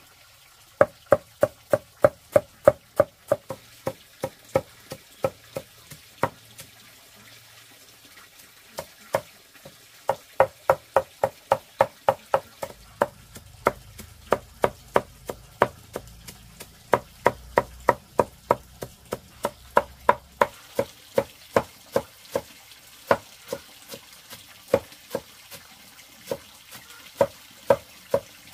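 Knife chopping on a cutting board in a steady rhythm of about three strokes a second, with a short pause about seven seconds in.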